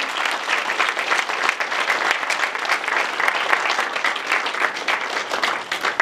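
Audience applauding at the end of a talk: many hands clapping in a dense, steady patter.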